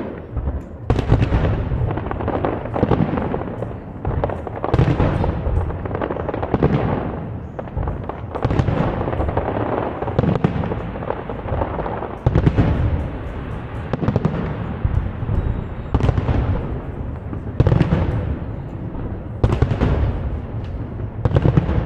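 Fireworks display: aerial shells bursting one after another, a loud bang every second or two, each echoing off into a rumble.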